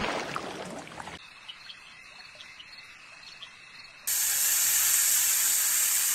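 A quiet night chorus with a steady high trill and faint pulses, fitting a calling tree frog. About four seconds in it gives way abruptly to a snake's loud, steady hiss lasting about two seconds.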